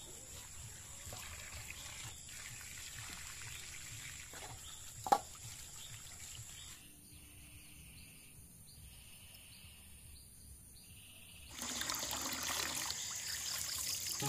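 Water trickling from a pipe into a metal basin of fish being washed by hand, with one sharp knock about five seconds in. The water grows louder near the end as it runs over the fish in the hands.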